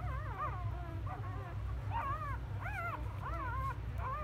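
Newborn Labrador Retriever puppies whimpering: a string of short, high squeaks, each rising then falling in pitch, coming about every half second to second.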